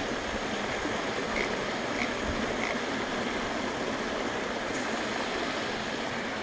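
Water rushing steadily over the rocks of a low-water bridge: a constant whitewater noise.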